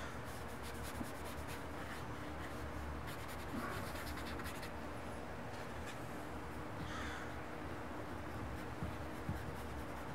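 Faint brushing and light tapping of a thin watercolor paintbrush on paper, over a steady room hiss and hum.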